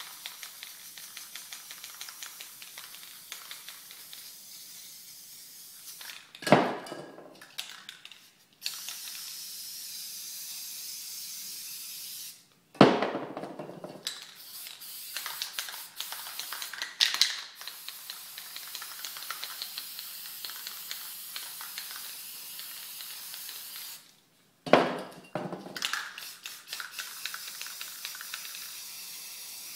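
Aerosol spray paint cans hissing in long sprays onto a canvas. Four loud, sudden noises break in, and the sound cuts out abruptly three times.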